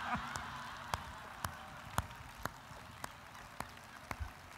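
One person clapping slowly and steadily, about two claps a second, over audience noise that fades away in the first second or two.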